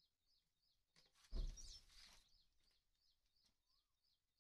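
Faint bird chirping: short, high chirps repeated at about four a second without a break. A brief burst of noise about a second and a half in is the loudest sound.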